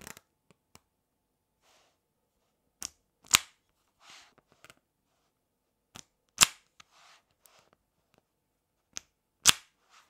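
Blocks of 5 mm neodymium magnet balls snapping together as the separating card is pulled away: three loud, sharp clacks about three seconds apart, each with a lighter click about half a second before it.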